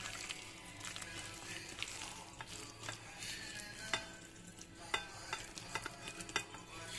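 A bare hand squeezing and mashing fried eggplant with chopped onion, coriander and mustard oil in a plastic bowl: soft, wet squelching with a few small clicks in the second half.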